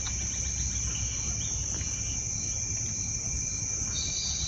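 A steady, high-pitched chorus of trilling insects over a low background rumble, with a few faint bird chirps near the end.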